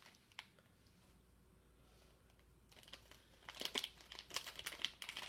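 Toy packaging crinkling and rustling as it is torn open and handled by hand, faint at first and then busier from about two and a half seconds in.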